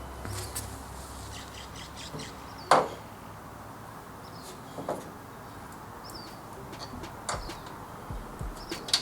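A few sharp knocks and clinks of hand tools on the car's parts, the loudest a little under three seconds in. Faint bird chirps sound now and then in the background.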